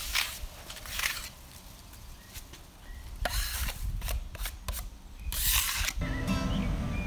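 A brush scrubbing over carved wood in scratchy strokes about a second apart, then a run of quicker strokes and one louder stroke. Choir music comes in near the end.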